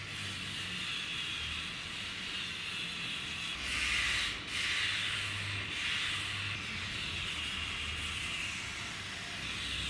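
Steady abrasive sanding noise that starts abruptly, with small swells in strength.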